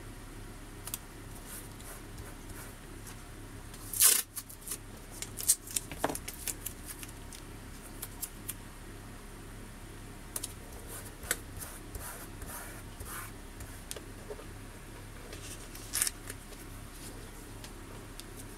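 Masking tape and vinyl backing paper being handled and pressed down by hand on a cutting mat: scattered rustles and clicks, the loudest about four seconds in and another near the end.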